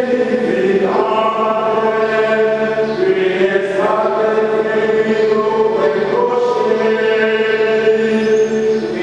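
Liturgical chant sung slowly on long held notes, the pitch stepping to a new note every one to three seconds.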